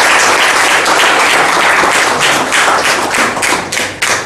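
Audience applauding, thinning out into a few scattered separate claps in the last second or so before stopping.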